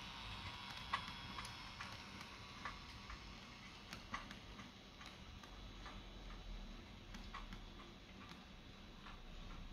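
HO-scale model freight wagons rolling along curved track, their wheels clicking irregularly over the rail joints, about two clicks a second, over a faint steady rolling hiss.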